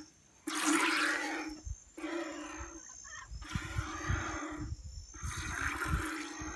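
A dairy cow's heavy, groaning breaths, about four in a row roughly a second and a half apart, the first starting sharply about half a second in.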